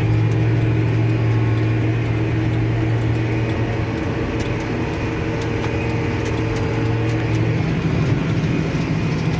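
John Deere tractor engine running steadily under load while pulling a Krone 1290 large square baler through the field. The steady hum turns rougher about seven and a half seconds in.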